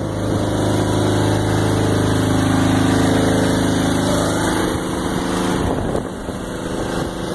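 An engine running at a steady speed with an even hum. About four and a half seconds in, the hum weakens and rougher noise takes over.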